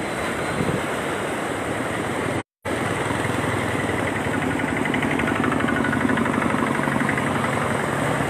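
Fast-flowing floodwater rushing across a road, mixed with an engine running close by whose steady hum comes up more clearly from about four seconds in. The sound cuts out completely for a moment about two and a half seconds in.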